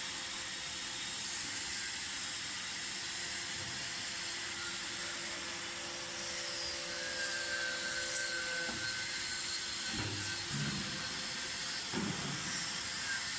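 Automatic hydraulic lick-block press running: a steady hum and hiss from the machine, with a low clunk about every two seconds in the second half.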